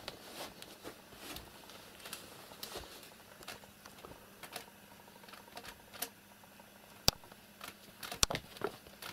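Faint, scattered light clicks and scratchy taps, with two sharper clicks about seven and eight seconds in.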